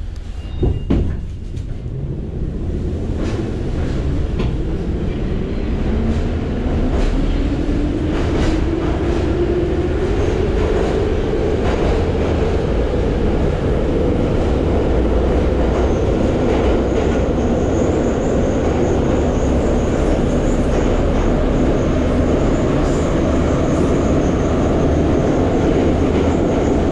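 Metro train heard from inside the car as it pulls away from a station and accelerates into the tunnel: a couple of knocks about a second in, then a steady rumble of wheels and running gear with a motor whine rising in pitch over about ten seconds before levelling off. A faint high whine joins partway through.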